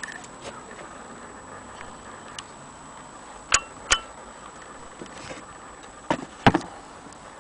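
A few sharp clicks and knocks from handling an antique Willcox & Gibbs sewing machine, over a faint steady hiss: two close together about halfway through and a louder pair near the end.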